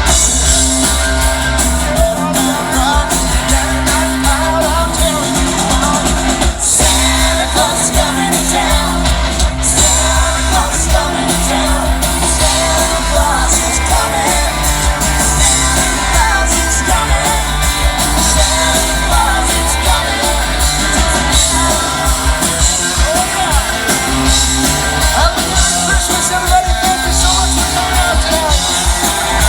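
A live rock band playing on an outdoor stage, with a singer and heavy bass and drums; the music is loud and steady throughout.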